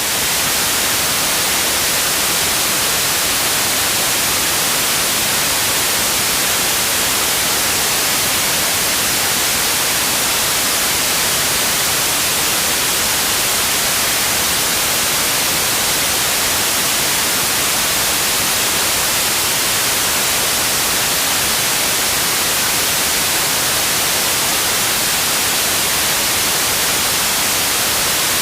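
Loud, steady broadcast static hiss that starts abruptly out of dead silence, with no tone in it and most of its energy in the high end: the sound of a station that has gone off the air.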